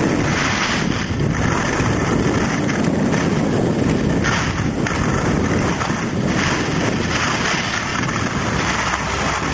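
Wind buffeting the microphone of a camera moving fast down a ski slope: a steady, ragged rushing with heavy low rumble.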